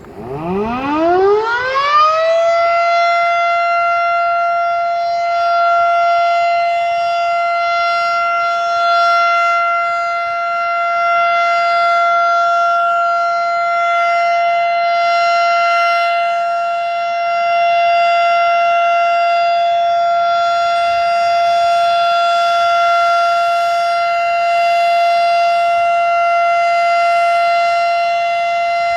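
Federal Signal Model 7 outdoor warning siren starting up in a test. Its pitch rises quickly over the first two seconds or so, then settles into a steady alert tone. That tone holds, its loudness swelling and easing slightly.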